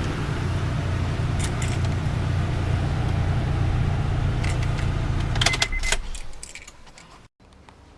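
2005 Honda Pilot's 3.5 L V6 running with the AC on, a steady low hum with only one of its two cooling fans spinning: the other fan motor has failed. About five and a half seconds in come metallic jangling and clicks, and the running sound dies away.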